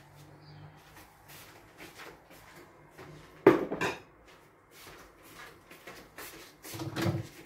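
Kitchen utensils and dishes clinking and knocking, a spoon or spatula against a bowl and pan. Light scattered clinks, one sharp loud knock about three and a half seconds in, and a heavier clatter near the end.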